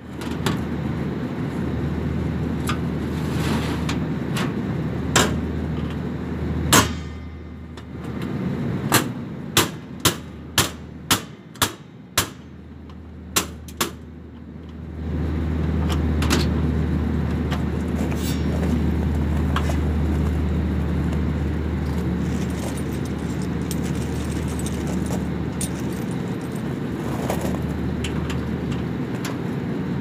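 Hand work on a sheet-metal duct access panel: a run of sharp metallic clicks and knocks, several in quick succession about a third of the way in. Under them is a steady low rumble that dips briefly and comes back louder about halfway through.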